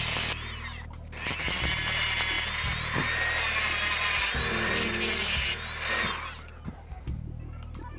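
Handheld rotary tool with a thin cut-off disc grinding through a small piece, a high whine over a grinding hiss. It drops off about half a second in, comes back a second later and stops about six seconds in. Quiet background music runs underneath.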